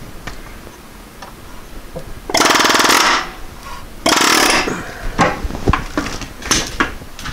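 Air chisel hammering in two short bursts, the first about two and a half seconds in and the second about four seconds in. Its bit is driven against a seized Allen-head bolt in a water pump pulley to shock the bolt loose. A few scattered metallic knocks follow.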